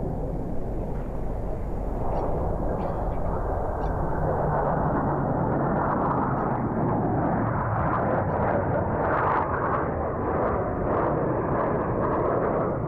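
Steady jet noise from a formation of Blue Angels F/A-18 Hornets flying past, a dense, continuous roar that fills out a little in its upper range after a few seconds.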